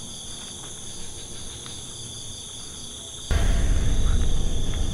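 Steady high chirring of crickets and other night insects. About three seconds in, a loud low rumbling noise starts suddenly and drowns out the low end.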